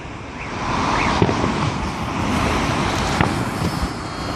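Fireworks salute: a steady rumble of distant bursts, with two sharper bangs, one about a second in and one about three seconds in.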